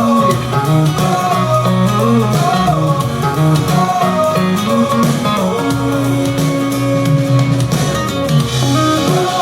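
Pop song's instrumental break: guitar-led music with a steady beat and bass line, no singing.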